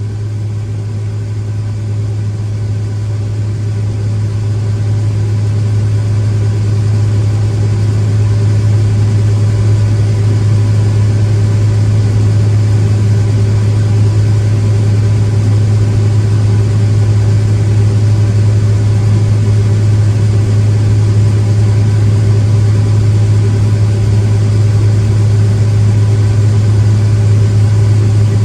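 Heavy farm machinery engine running steadily under load, a constant deep hum that grows louder over the first several seconds and then holds.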